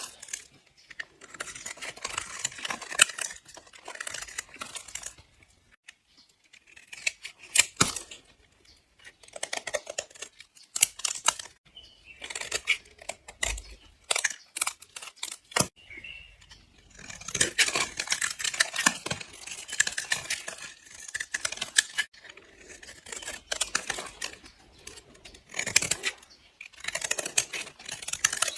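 A blade slicing through bars of soap with a crisp, crunchy crackle, in a series of cutting strokes separated by short pauses, with a few sharp clicks in between.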